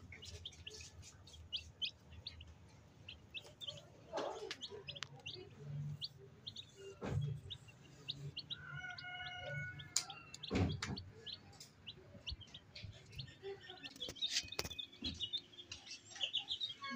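Baby chicks peeping: a steady scatter of short, high cheeps, with a couple of sharp knocks in the middle.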